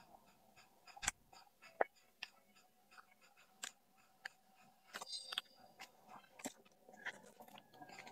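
Heat-transfer sheet being peeled off a freshly pressed T-shirt print once it has cooled: faint, irregular crackles and ticks of the film lifting away from the fabric, the sharpest about a second and two seconds in.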